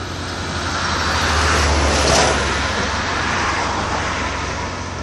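A road vehicle driving past, its tyre and engine noise swelling to a peak about two seconds in and then fading away.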